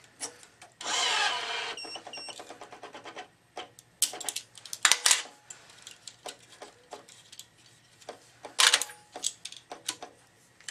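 Metal flying clamps and racket strings being handled on a racket stringing machine: a brief rasping noise about a second in, then a quick run of clicks and scattered sharp clicks and knocks as the clamps are worked loose and moved.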